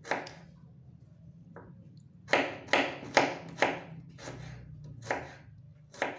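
A person chewing crunchy crackers close to the microphone: a run of sharp crunches about two a second, starting a couple of seconds in, over a faint steady low hum.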